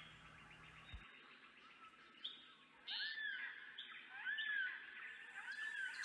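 Yellow-tailed black cockatoo calling: three calls from about three seconds in, each rising then falling in pitch, a little over a second apart.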